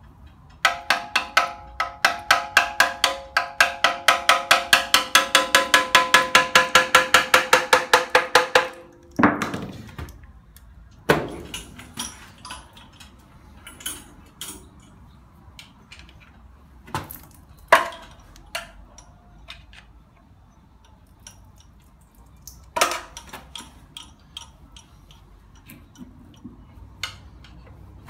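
Ratchet wrench working bolts on a Hyundai Accent engine being dismantled. A fast run of ringing metal clicks, about five a second, goes on for some eight seconds, then gives way to scattered clicks and knocks of tools and parts.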